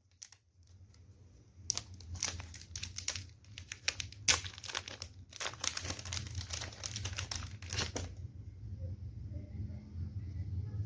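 Irregular crinkling and rustling handling noise, like plastic or packaging being handled, from about two seconds in until about eight seconds in, over a steady low hum.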